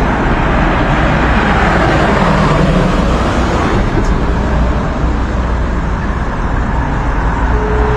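Steady road traffic noise, a continuous rumble of passing vehicles with no single event standing out.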